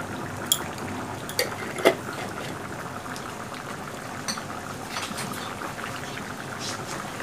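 Prawn and taro curry boiling in an open pan on a gas flame: a steady bubbling hiss, with a few sharp clicks, the loudest about half a second and two seconds in.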